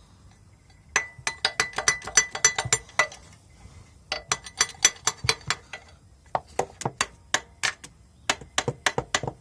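A metal tool tapping on a 2005 Honda Civic's starter motor, the old trick for freeing a starter suspected of sticking. The blows are sharp, ringing metal clicks in four quick runs of several taps each, with short pauses between.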